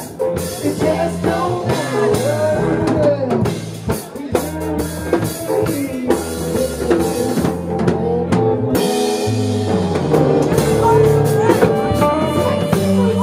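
Live band playing: a drum kit keeps a steady beat with kick and snare under an electric bass guitar and other pitched instruments.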